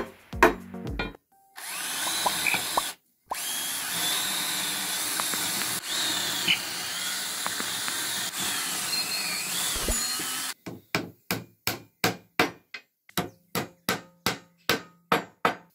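Cordless drill boring into the wood at the joints of a clamped table-leg frame, first in a short run and then in a longer one of about seven seconds. After that comes a hammer striking at about three blows a second, driving wooden dowels into the drilled joints.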